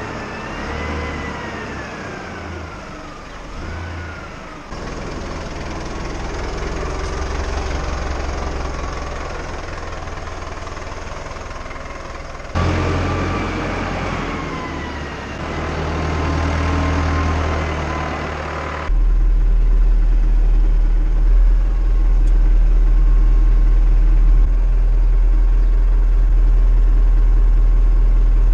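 Tractor diesel engine running as it manoeuvres, its revs rising and falling in the first few seconds. After a few abrupt cuts, the last third is heard from inside the cab as a loud, steady low drone.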